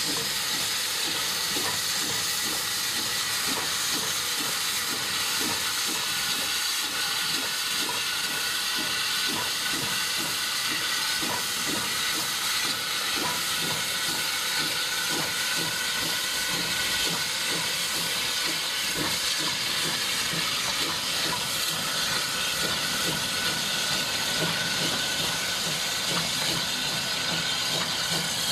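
Steam tank locomotive working hard as it hauls a train of coaches past: a continuous hiss of steam with a regular beat of about two a second underneath.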